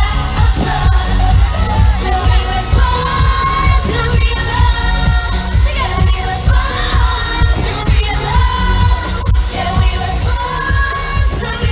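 Female K-pop vocals sung live into handheld microphones over a loud pop backing track with a heavy bass beat, heard through a concert sound system.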